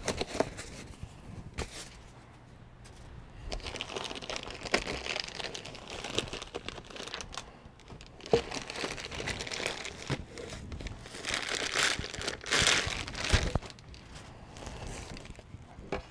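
Plastic wrap and foam packing crinkling and rustling as a boxed soldering station is unpacked by hand, with a few small knocks. The rustling starts a few seconds in and is loudest about three-quarters of the way through.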